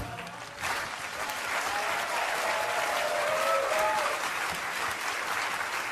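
Audience applauding, the clapping swelling up about half a second in and holding steady.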